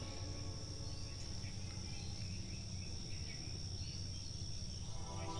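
Faint steady background: a low hum and a thin, steady high-pitched tone, with faint small chirps above it.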